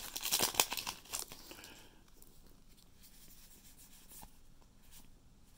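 Foil booster-pack wrapper crinkling and tearing open, loudest in the first second or so. After that, faint rustles and clicks of trading cards being handled.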